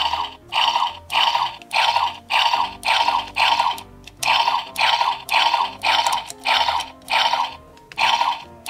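Music with a loud, steady rhythm of noisy, shaker-like hits, about two a second.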